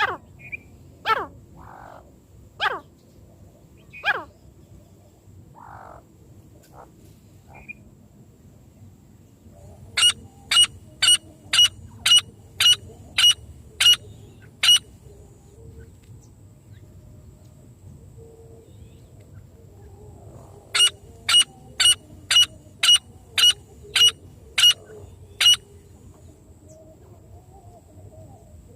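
Francolin (teetar) calling: a few short falling notes, then two runs of about ten loud, sharp, evenly spaced notes at roughly two a second.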